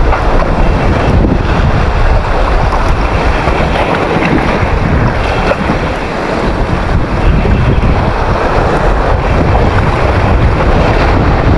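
Strong wind buffeting the microphone over the wash of ocean waves, a steady loud rush with a brief lull about six seconds in.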